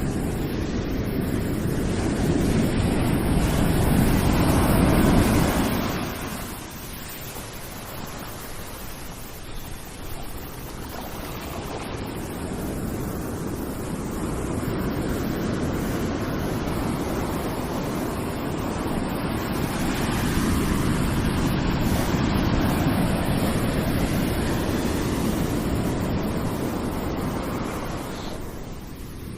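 Ocean surf washing in: a wave swells and breaks in the first few seconds and falls away, then the surf builds again more slowly and eases off near the end.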